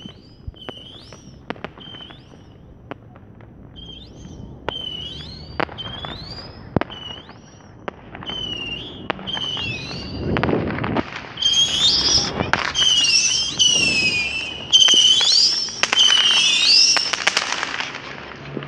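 Fireworks going off: repeated high whistles, each holding a pitch and then gliding upward, mixed with sharp pops and crackles. About ten seconds in, the whistles and pops grow louder and come in dense overlapping volleys.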